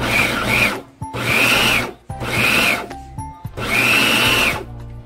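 Electric food processor pulsed in four short bursts of about a second each, its motor whining as the blade chops carrots, onion, garlic and cilantro.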